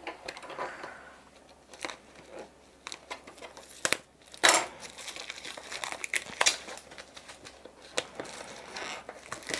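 Plastic shrink-wrap film crinkling and tearing as it is cut with scissors and pulled off cardboard kit boxes. There are irregular crackles and sharp snaps, the loudest about four and a half seconds in.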